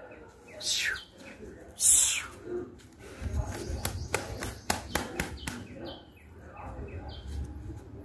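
Parrot-beak Aseel rooster flapping its wings: two loud whooshes in the first two seconds, then a quick run of wingbeats from about three to five and a half seconds in. Small birds chirp in the background.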